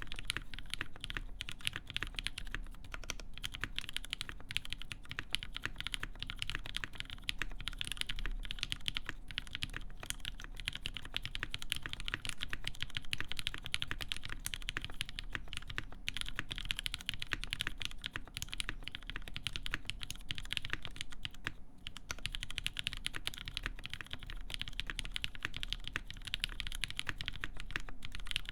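Continuous typing on a mechanical keyboard with lubed linear Cherry MX Black switches on a full aluminum plate and GMK keycaps: a dense, steady stream of key clacks.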